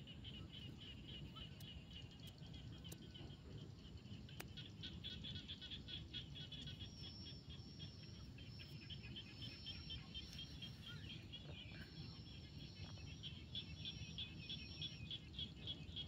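A faint chorus of frogs calling, a rapid run of pulses repeating without a break, with a thinner, higher steady tone joining in several stretches in the second half over a low background hum.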